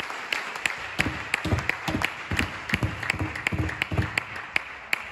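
Table tennis ball being struck back and forth in a rally, a sharp click about three times a second, over steady crowd applause and cheering. A run of low thuds comes in the middle.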